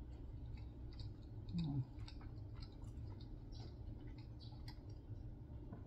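Close chewing of a piece of hard bread: small irregular mouth clicks and crunches, with a short hum from the eater about a second and a half in.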